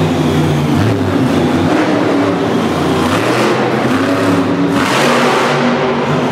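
Grinder monster truck's supercharged V8 engine revving up and down repeatedly as the truck drives on the arena's dirt track.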